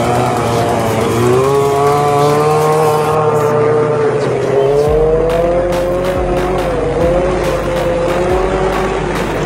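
Motorcycle engine held at high revs during a wheelie. Its pitch rises about a second in, then wavers up and down.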